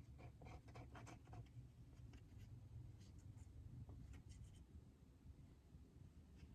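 Near silence: a faint steady low hum with a scatter of soft clicks and light scratching in the first few seconds.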